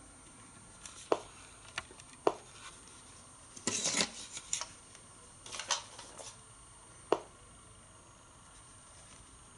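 A few sharp knocks and clicks of hard objects being handled and set down, with two short bursts of clatter and scraping in the middle.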